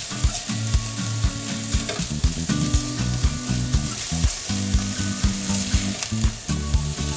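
Onion and spices sizzling as they sauté in a hot pan. A utensil scrapes and taps against the pan bottom with irregular clicks, several a second, loosening the browned fond stuck there.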